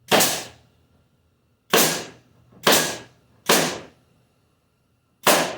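Pneumatic nail gun firing five times at irregular intervals into a glued, butt-jointed plywood drawer box. Each shot is a sharp crack that fades quickly.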